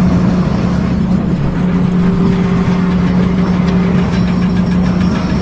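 A motor running steadily with a constant low drone.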